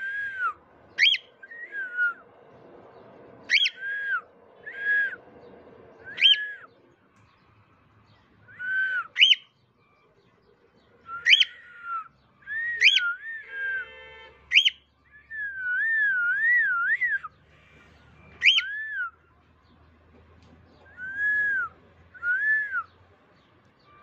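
Cockatiel whistling: a string of short whistle notes that sweep sharply up and fall back, with a wavering, warbling run of whistles about midway through.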